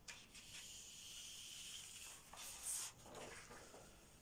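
Faint sliding and rustling of a large sheet of paper on a desk as it is taken away and replaced: a steady soft hiss for about two seconds, then a short louder rustle and a few fainter ones.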